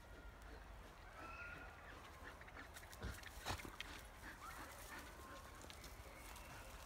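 Dogs snuffling and rustling through forest undergrowth, with a few faint twig cracks, the sharpest two about three seconds in.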